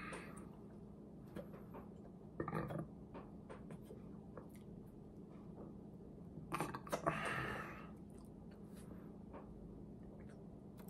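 Close-up wet mouth sounds of a person licking and sucking his fingers after eating, with small smacks and two louder sucking bursts about two and a half and seven seconds in, over a faint steady hum.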